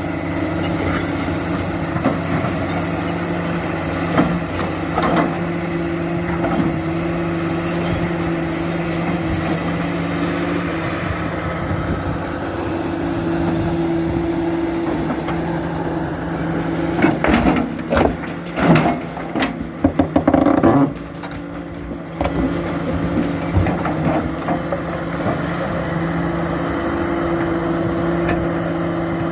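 Komatsu PC400 excavator's diesel engine running steadily under work. Roughly two-thirds of the way through comes a burst of loud knocks and clatter lasting a few seconds.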